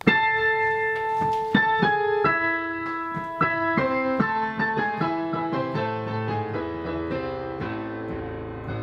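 Piano music: a melody of separate notes over chords, fading out gradually through the second half.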